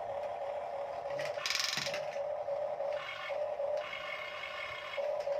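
Toy RC excavator's small electric motor and plastic gears whirring steadily, with a short rattle about a second and a half in.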